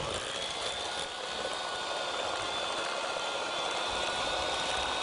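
Electric hand mixer running, its twin beaters whirring through a yellow egg batter with a steady motor whine that climbs slightly in pitch in the first second.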